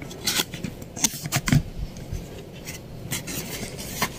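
Cardboard box being opened by hand and a plastic-wrapped speaker slid out of it: a series of irregular scrapes and rustles of cardboard and plastic.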